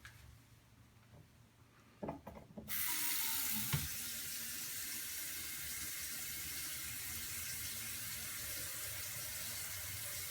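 Water running from a bathroom tap: a few clunks about two seconds in as it is turned on, then a steady hiss of flowing water.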